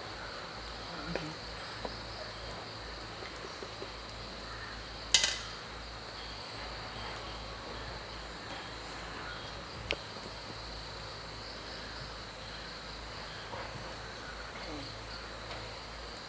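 Insects trilling steadily at a high pitch, with one sharp click about five seconds in and a fainter click near ten seconds.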